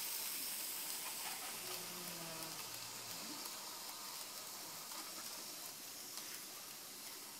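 HO-scale model train running around its track: a steady hissing whir of the small electric motor and wheels on the rails, slowly getting fainter.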